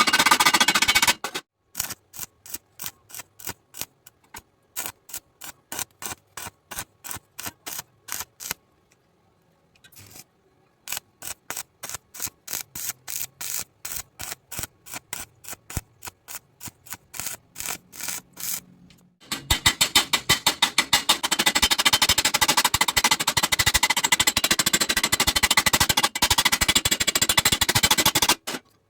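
Stick-welding arc crackling, broken into short rapid strikes about three a second as the rod is stitched on and off to bridge a hole in the metal, then running as one continuous arc for the last third.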